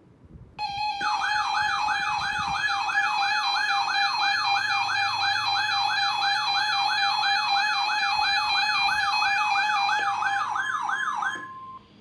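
Electronic emergency alert alarm: a siren-like warble sweeping up and down about three times a second over a steady lower tone. It starts about half a second in, sounds for about ten seconds, and ends with a brief single steady tone. It signals an incoming severe thunderstorm warning.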